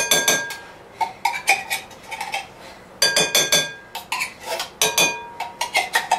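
A metal spoon scraping and knocking inside a tin can of condensed soup, in irregular clusters of clinks and scrapes with a brief metallic ring, as the thick soup is worked out of the can.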